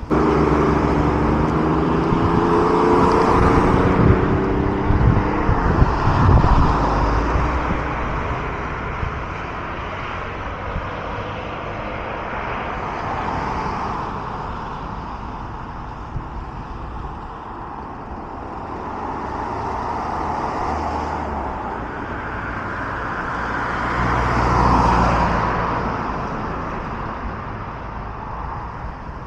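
Road traffic on a multi-lane city road: cars passing one after another, swelling and fading every few seconds. A vehicle's engine drone is close and loudest in the first several seconds, its pitch sinking slightly, and another car swells past near the end.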